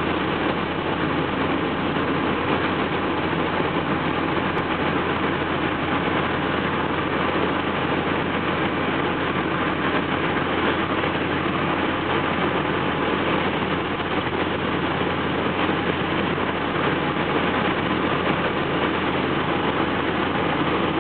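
Steady in-cabin noise of a VW Golf turbodiesel cruising at motorway speed: a low engine drone under the hiss of tyres on wet asphalt.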